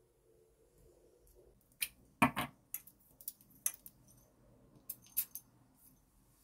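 A run of small, irregular clicks and light knocks, about nine in all, as small hard objects are handled in a small room. The loudest is a double tap about two seconds in.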